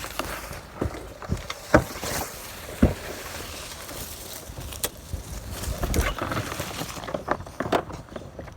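Footsteps with irregular knocks and rattles from handling a heavy window air conditioner being carried, two sharper knocks about two and three seconds in, and a low rumble around six seconds in.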